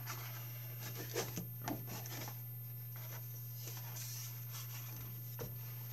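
Card stock being handled and slid over a cutting mat: soft rubbing and rustling strokes, busiest in the first couple of seconds, with a small knock near the end. A steady low hum runs underneath.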